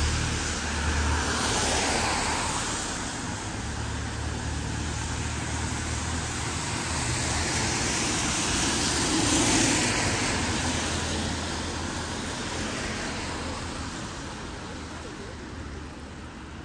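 Cars passing on a road: rushing tyre and engine noise swells about a second in and again around the middle, then fades away toward the end.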